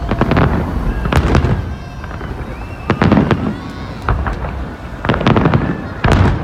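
Festive fireworks salute going off: a series of loud bangs, roughly one every second and some in quick pairs, each trailing off in an echoing crackle.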